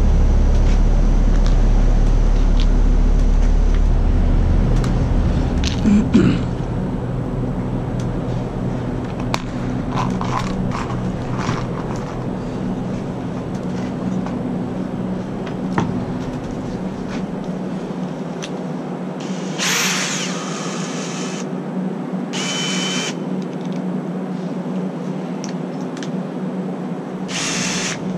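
Power drill running in three short bursts in the second half, the first about two seconds long. Under it, a loud steady low hum dies away over the first half, with scattered knocks in between.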